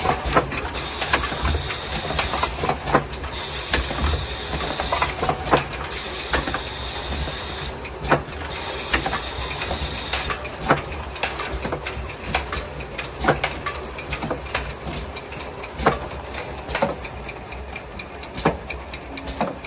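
Automatic rotary jar filling, foil-sealing and capping machine running: a steady machine hum under a stream of sharp clicks and knocks as the plastic jars are indexed and worked. A high whine comes on for about a second and a half every couple of seconds, then stops about halfway through.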